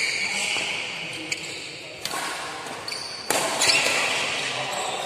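Badminton doubles rally in a large hall: rackets striking the shuttlecock in sharp cracks, two louder hits about two and three seconds in, with shoes squeaking on the court floor and voices in the background.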